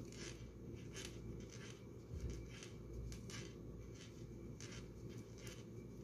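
Stitch marker hanging from crochet work knocking faintly on the worktop as the piece is moved, a few soft, irregularly spaced ticks.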